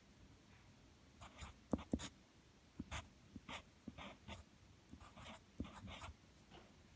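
Pencil writing on paper by hand: a run of short, faint scratching strokes with a few sharper taps of the lead as letters are formed.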